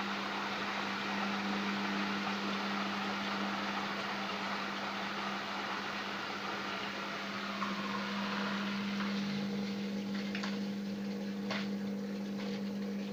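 Beko washing machine running with a steady hum and water rushing through it. The rushing eases about eight seconds in, then a few sharp clicks or cracks come near the end.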